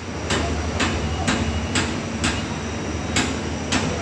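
Heavy construction machinery running with a steady low diesel hum, under a regular hammering knock of about two strikes a second.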